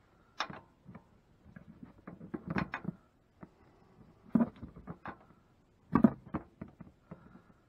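Metal clicks and clanks of a ratcheting gear wrench working the top mounting nut of a truck's front shock absorber. Irregular sharp knocks come in small clusters, the loudest about half a second in, near the middle and about six seconds in.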